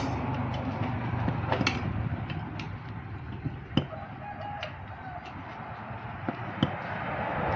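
A metal tire lever clicking and scraping against a motorcycle's spoked wheel rim as the tire bead is pried over it. There are a few sharp clicks, the loudest about four seconds in and near the end, over a steady background noise.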